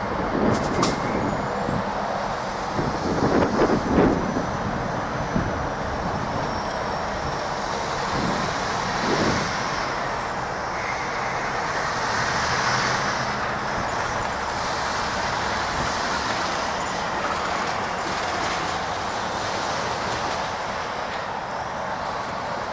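Double-stack intermodal freight train rolling away on curved track: steady noise of wheels on rail, with several sharp knocks in the first few seconds and a faint high squeal wavering in pitch.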